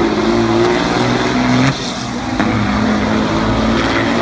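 Two diesel semi trucks accelerating hard side by side in a drag race, their engines running loud under full load. About 1.7 seconds in the engine sound drops off suddenly, and it comes back strongly about half a second later.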